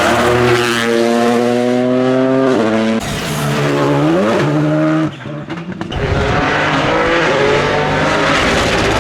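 Rally car engine under hard acceleration, its pitch climbing and dropping sharply at quick upshifts, then a brief lift off the throttle with crackles about five seconds in before the engine comes back on loud.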